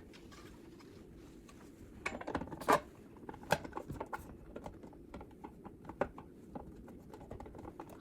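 Scattered clicks and light knocks of a doorbell chime's cover being handled and fitted, the loudest about three seconds in, over a faint steady low hum.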